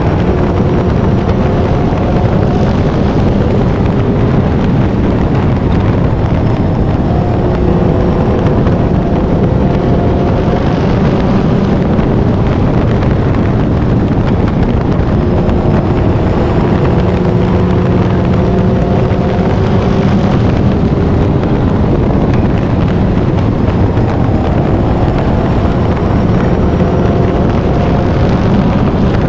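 A 4-cylinder short-track race car's engine at racing speed, recorded onboard. Its pitch climbs along the straights and drops back as the throttle comes off for the turns, several times over.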